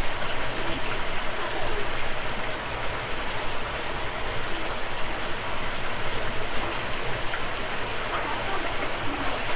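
Shallow creek water running over rocks in a steady rush.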